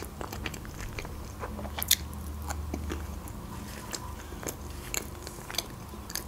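Close-miked chewing of a mouthful of pizza: irregular crunchy clicks and wet smacks of the mouth, the loudest about two seconds in.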